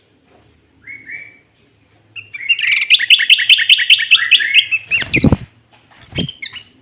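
Sooty-headed bulbul (kutilang) singing: a short two-note phrase, then a loud, fast run of about ten repeated notes lasting a couple of seconds, with a few more notes near the end. Two low thumps come between the last notes.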